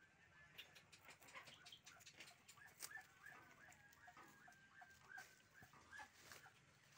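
A Muscovy duck and a chicken fighting in dry leaves: faint scuffling and rustling, with a run of short, squeaky bird calls about two a second through the middle.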